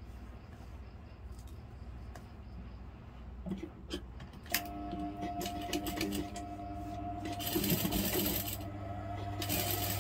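Sewing machine stitching a seam: a couple of clicks, then from about halfway in a steady whine with the needle's rapid clatter, loudest in two runs near the end.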